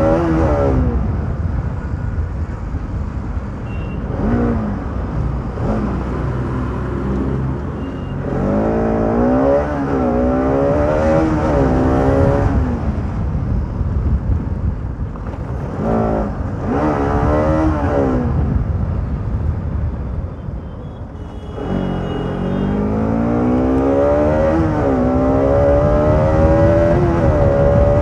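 Motorcycle engine accelerating hard under racing load, its pitch climbing and then dropping back at each upshift, several times over, with a steady rush of wind and road noise underneath.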